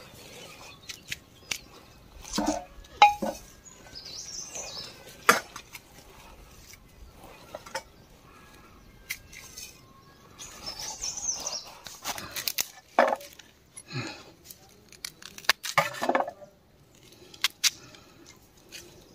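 Scattered clinks and knocks of metal cooking utensils, with birds chirping now and then in the background.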